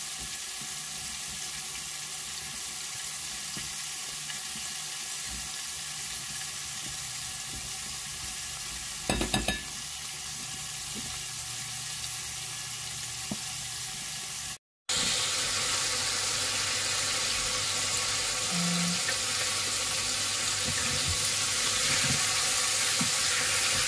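Breaded chicken deep-frying in hot oil in a pot under a mesh splatter screen: a steady sizzle, with a short clatter about nine seconds in. The sound drops out for a moment about halfway through and returns a little louder.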